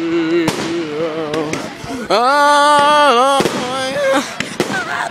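Fireworks going off: repeated sharp bangs and crackling pops, with a loud, slightly wavering drawn-out tone over them from about two seconds in for a second and a half.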